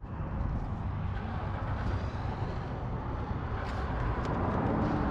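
Steady outdoor background noise with a low rumble, and a few faint clicks in the second half.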